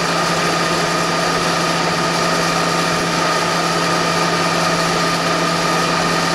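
Bridgeport vertical milling machine's 1 hp three-phase motor running, a steady hum with a whine held on one pitch.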